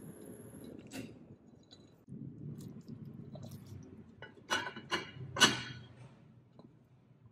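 Clear glass lid being set onto a white casserole dish, clinking against the rim three times about half a second apart, the last clink the loudest, with a single lighter click earlier.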